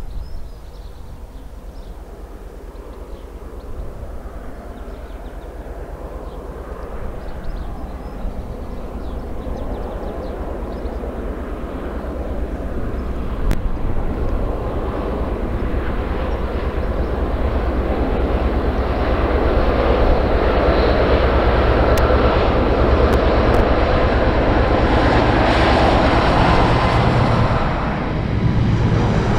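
Diesel freight locomotive approaching at the head of a heavy coal train, its engine a steady low drone that grows louder over about twenty seconds. Near the end the sound shifts to the rumble of the coal hoppers rolling past.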